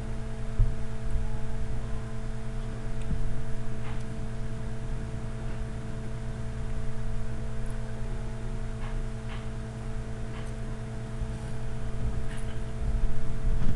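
Steady electrical hum with low rumbling background noise and a few faint clicks.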